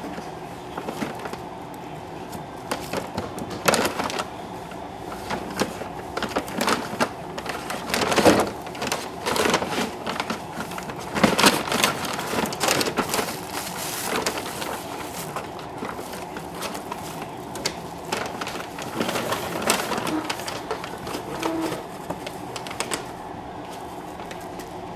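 Paper bag crinkling and rustling in irregular bouts as a cat rolls and thrashes inside it, biting and kicking a catnip toy, loudest about 4, 8 and 11 to 13 seconds in. A steady hum runs underneath.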